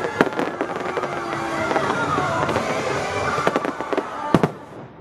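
Fireworks shells bursting overhead: several sharp bangs with crackle between them, a loud one at the start and another near the end. The show's music soundtrack plays underneath.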